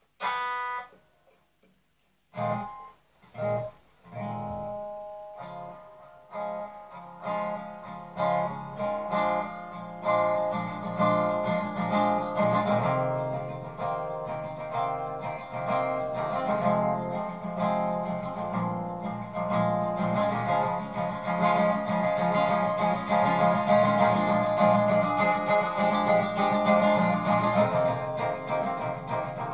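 Acoustic guitar played solo. A single chord rings out at the start, then plucked notes come in about two seconds later and build into steady picked chords that grow louder toward the end.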